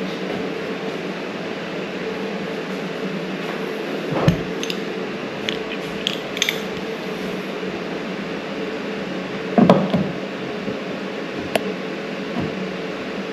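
A few knocks and metallic clinks of tools and hardware being handled, over a steady background hum. There is a sharp knock about four seconds in, light clicks a second or two later, and a cluster of knocks near ten seconds.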